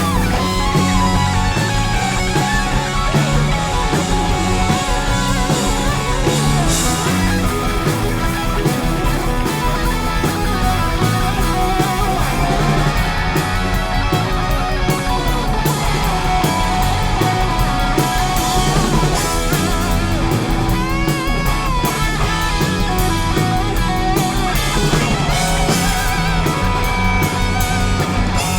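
Rock band playing: distorted electric guitars over bass and a drum kit.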